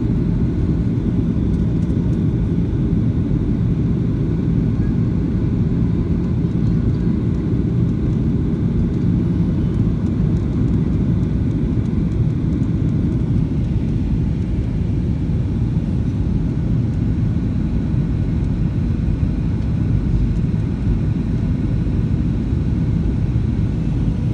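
Cabin noise of a Boeing 737-800 airliner in flight: a steady low rumble of its CFM56 engines and airflow, with faint steady tones above it and no change in level.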